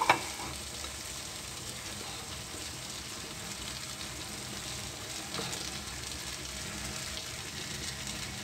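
Fried onion and yogurt masala sizzling steadily in a black iron karahi as raw fish steaks are laid into it, with a sharp knock right at the start.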